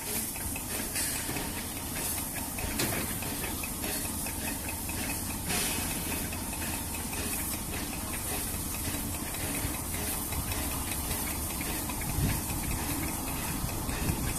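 A steady hiss over a constant low rumble from a diesel locomotive approaching in the distance.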